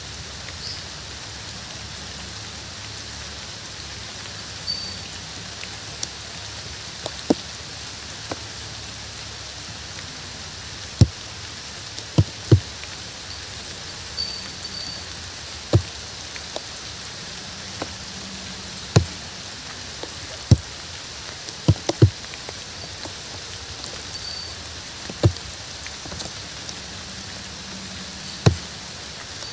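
Steady rain falling, an even hiss, with louder single drops plopping a dozen or more times at irregular intervals.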